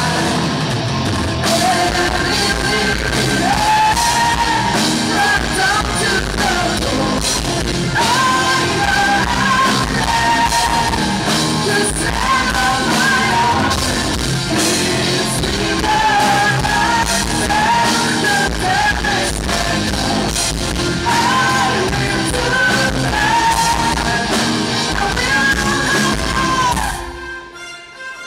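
Live progressive rock band playing loudly with a lead singer, the sung melody repeating phrase by phrase over the band. Near the end the band cuts off abruptly.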